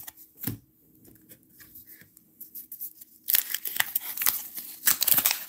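Waxed-paper wrapper of a baseball card wax pack being torn open: two spells of crinkling and ripping, starting about three seconds in and again near the end.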